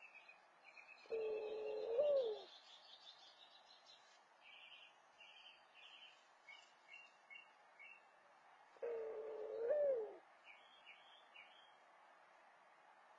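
Mourning dove giving two low coos several seconds apart, each a steady note of about a second that ends in a quick rise and drop in pitch: the nest call a dove on its nest gives to its mate. Faint high chirps of small birds in between.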